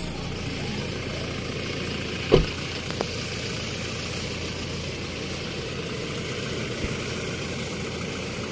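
Toyota Hilux Revo pickup's engine idling steadily, with a single sharp thump a little over two seconds in and a light click about a second later.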